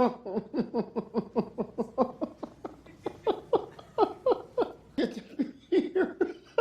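A person laughing hard: a long run of quick 'ha-ha' syllables, each dropping in pitch, about four or five a second, with brief breaks for breath.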